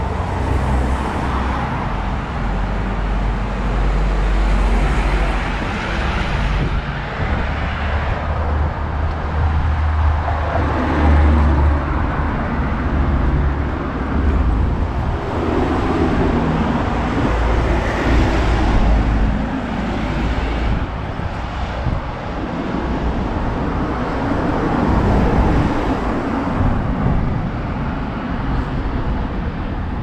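Road traffic on a narrow town street: cars passing, one swelling up and fading as it goes by about halfway through, over a steady low rumble.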